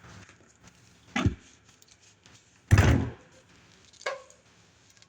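Three dull knocks, about a second and a half apart, the middle one loudest: hard parts or tools being handled and bumped while a disposal hose is fitted.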